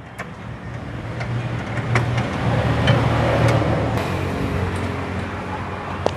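A motor vehicle engine running, a steady low hum that swells about halfway through and then slowly fades, with a few light clicks over it.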